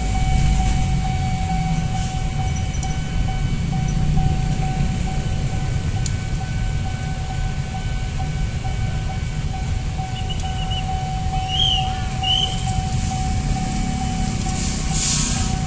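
Steady low rumble with a constant hum of a busy railway station yard. A few short bird chirps come between about ten and thirteen seconds in, and a brief hiss comes near the end.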